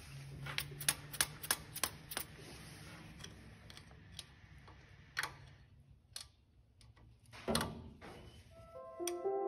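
Socket ratchet wrench clicking as it loosens the manifold nuts on an old flathead engine: a quick run of clicks, about three a second, then slower scattered clicks and one louder knock near the end.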